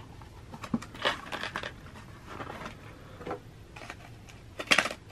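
Packaging being handled and opened: a small cardboard box and a clear plastic bag crinkling and rustling in short bursts, the loudest near the end.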